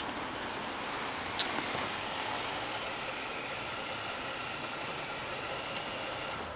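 Chrysler 300 sedan pulling up slowly and idling, a steady rushing engine and road noise. One sharp click about a second and a half in.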